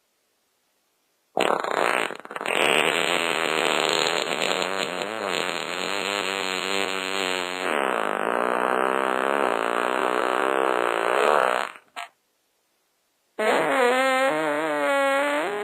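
Fart sounds: after a short silent gap, one long drawn-out fart of about ten seconds with a wavering pitch. It cuts off, and after a brief silence another fart starts near the end.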